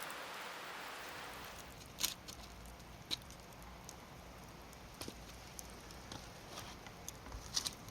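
Wood fire crackling, with a few sharp pops about two, three, five and seven and a half seconds in, over a soft hiss that fades away in the first couple of seconds.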